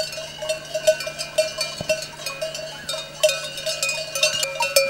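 Bells worn by a grazing flock of sheep clanking and jangling irregularly, several bells of different pitch ringing over one another.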